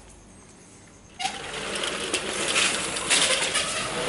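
Sliding fly-screen door being rolled along its track: a continuous rattling rumble that starts suddenly about a second in and gets a little louder about three seconds in.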